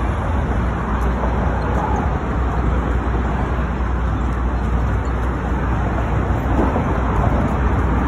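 Steady road traffic on the bridge roadway, cars and trucks passing in a continuous noise with a deep rumble underneath. Voices of passers-by come in faintly near the end.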